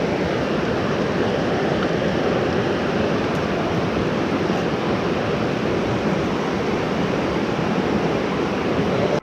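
Fast creek current and rapids rushing, a steady, loud wash of water close to the microphone.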